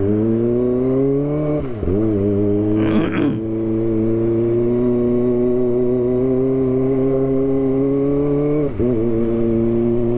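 Kawasaki ZX-25R's four-cylinder engine running steadily at low road speed. Its pitch dips briefly about two seconds in and again near the end, and there is a short noisy burst about three seconds in.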